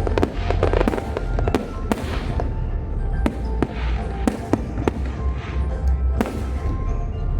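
Aerial fireworks going off in a rapid, irregular series of sharp bangs and crackles over a continuous low rumble, thickest in the first couple of seconds.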